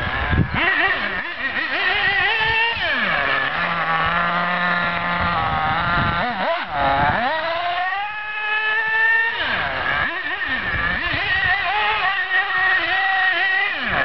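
Small nitro engine of a radio-controlled buggy running at a high-pitched buzz, revving up and down as the throttle is worked, with the pitch dropping sharply about three, six and a half, and ten seconds in.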